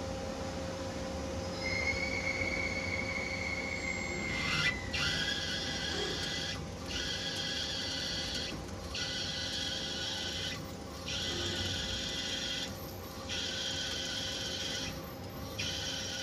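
CNC lathe peck drilling (G83 cycle) with an indexable-insert U-drill: the machine hums with a high whine, then from about four seconds in the drill cuts in pecks of about two seconds, each broken by a short gap as the drill retracts to clear chips.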